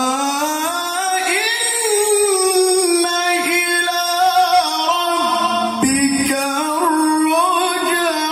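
A male qari reciting the Quran in melodic tilawah style into a microphone: one long melismatic phrase with wavering ornaments. The pitch climbs over the first two seconds, then slowly settles lower, with a short break about six seconds in.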